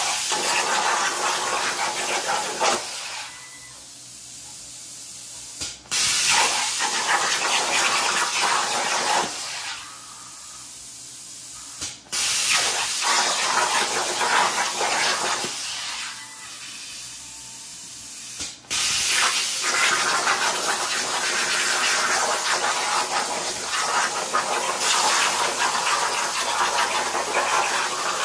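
A power tool hissing loudly as it cuts a panel out of 18-gauge sheet steel, dropping twice to a softer, thinner hiss and breaking off abruptly several times.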